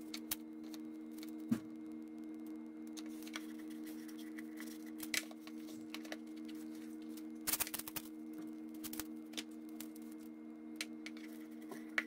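Painter's tape being pulled and pressed down by hand along the edges of a panel: scattered crackles and taps, a knock about a second and a half in, and a quick cluster of sharp crackles around the middle, over a steady low hum.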